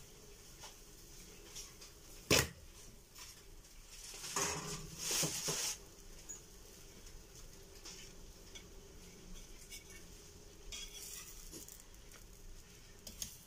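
A metal spatula clinking and scraping on a multi-well pancake pan: a sharp clack about two seconds in, a longer scrape about four to six seconds in, and lighter scrapes near eleven seconds as it slides under a pancake.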